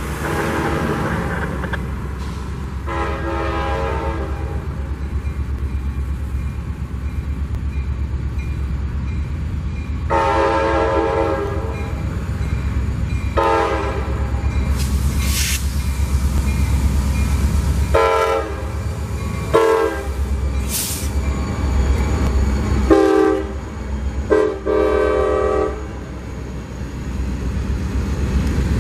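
A CSX freight train's diesel locomotive sounds its multi-note air horn in a series of about seven blasts, the early ones long and the later ones shorter, as it approaches a road grade crossing. Under the horn there is a steady low rumble from the passing locomotives.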